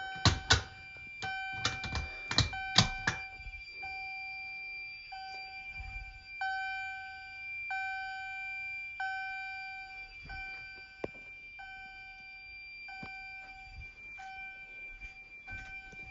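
CH70 fire alarm chime sounding a repeating chime tone, about once every 1.3 seconds, over a steady high-pitched tone. Sharp clicks and knocks come in the first three seconds as the system test is set off.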